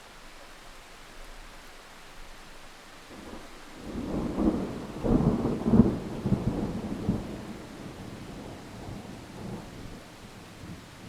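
Thunder rolling over steady rain hiss. The thunder builds about four seconds in, peaks in a few sharp cracks, then rumbles away over several seconds.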